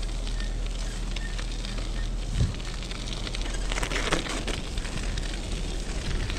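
Bicycle tyres crackling and crunching over icy, snow-crusted pavement, over a steady low rumble of riding noise, with one short thump about two and a half seconds in.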